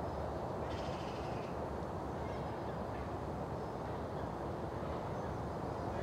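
Crow-family bird calling briefly about a second in, over a steady rushing background noise.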